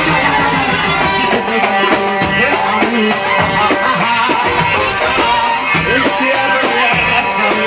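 Egyptian wedding band music: an ornamented instrumental melody full of pitch slides over a steady beat, with shaker or tambourine strokes about twice a second.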